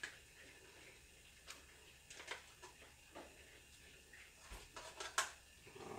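Faint, scattered clicks and light scrapes of a spatula against a plate and skillet as hamburger steaks are moved into gravy.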